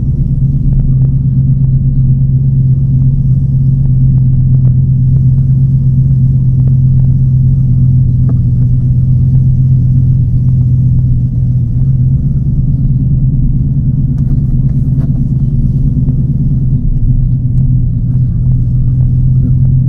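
TVR Chimaera's tuned 4.65-litre V8 running steadily while the car is driven, a deep, even rumble heard from inside the cabin. The engine has a race cam and has had its pre-catalysts removed.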